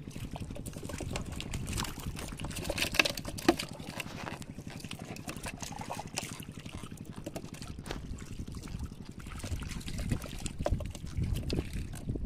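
Hands digging and scooping in waterlogged mud: wet squelching and trickling water, with a couple of sharper wet slaps about three seconds in.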